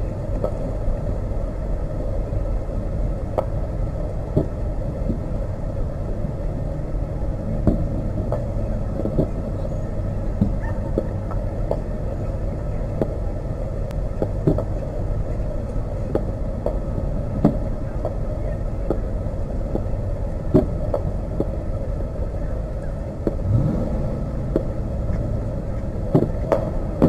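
Distant fireworks shells bursting, a short sharp bang every second or two, over a steady low rumble.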